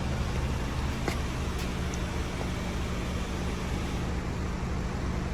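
Car engine idling with a steady low hum, and two faint clicks about a second in.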